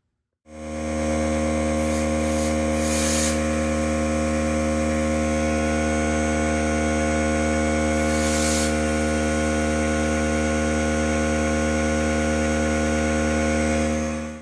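Small electric power tool running at a constant speed while sanding smooth a seal surface inside an automatic transmission's clutch drum. It gives a steady hum, with brief hissy scraping about two to three seconds in and again around eight seconds. The sound starts abruptly and cuts off sharply.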